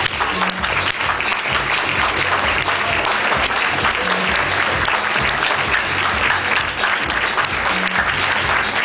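Audience applauding steadily over loud music with a repeating bass line.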